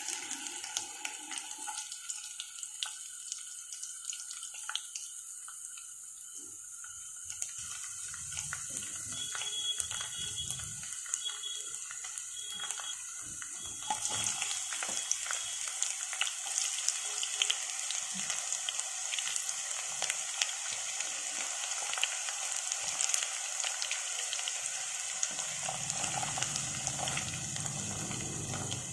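Hot oil sizzling and crackling in a granite-coated wok as garlic cloves fry. About halfway through, chopped onion is dropped in and the sizzle becomes louder and busier.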